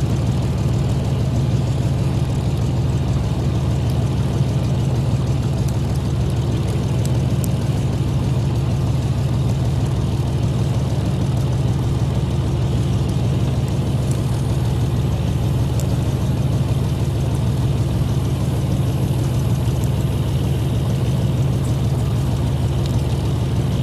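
Fishing boat's engine running steadily, a low, even hum that does not change.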